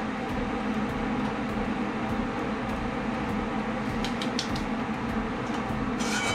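Steady hum of a kitchen fan motor, with a few light clicks about four seconds in and again near the end.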